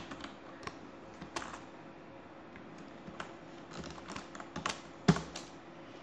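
Computer keyboard being typed on: scattered, irregular keystrokes, with a quick run of several about four seconds in.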